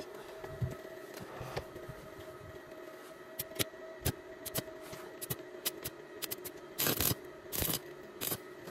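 Light metal clicks and scraping as a gloved hand handles a stick-welding electrode holder and the steel grounding strip it is being set against, with two short rough scrapes near the end. A faint steady hum lies underneath.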